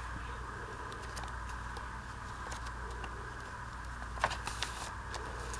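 Pages of a handmade paper book being turned and handled: a few faint paper rustles and light taps, two sharper ticks about four seconds in, over a steady background hum.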